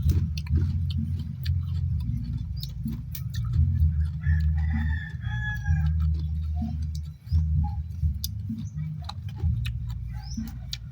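A rooster crows once, about four seconds in, over a steady low rumble and scattered clicks.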